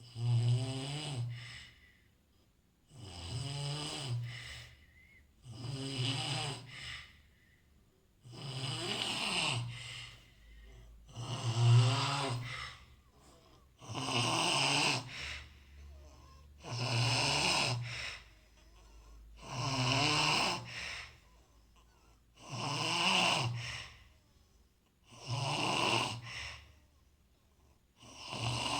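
A person snoring in a steady rhythm: about eleven snores, one every three seconds or so, each a low buzzing breath with quiet pauses between.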